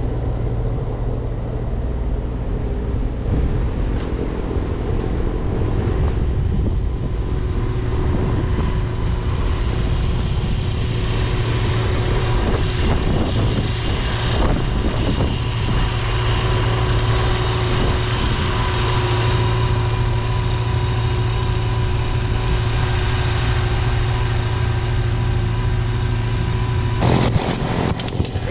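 Snowblower engine running steadily under load as it clears snow, a constant low drone with a steady hum above it. Wind buffets the microphone, and there is a short burst of noise near the end.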